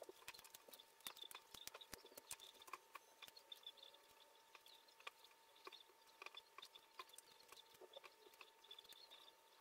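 Faint, irregular small clicks and taps of foam-board puzzle pieces being handled, fitted together and set down on a foam-board tray, over a faint steady hum.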